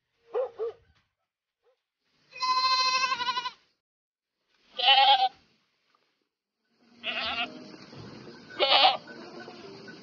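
A dog gives two quick short barks, then goats bleat four times, the first bleat long, about a second, and the others shorter.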